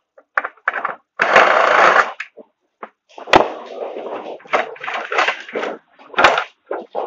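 Sheet-metal and plastic appliance parts being handled and pulled apart for scrap: scattered clacks and rattles, about a second of scraping, and a sharp metal knock about three seconds in, then another near the end.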